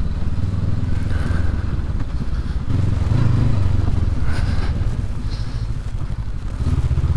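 Honda CB500X's parallel-twin engine running at riding speed, its note strengthening and rising slightly about three seconds in, with a few light rattles.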